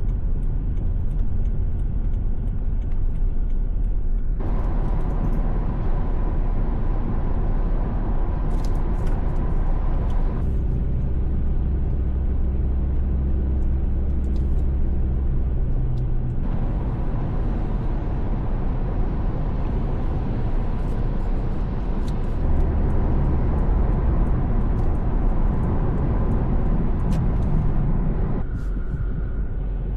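Steady low road-vehicle rumble, like driving at highway speed. It changes character suddenly several times, as if separate recordings had been joined.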